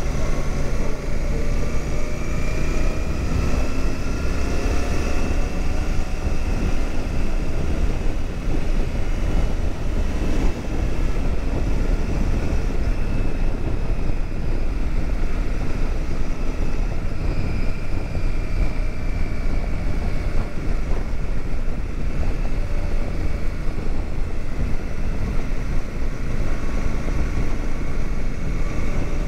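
Royal Enfield Super Meteor 650's parallel-twin engine running under way as the bike rides along, its pitch rising over the first few seconds as it accelerates and then holding steady, with a constant rush of wind.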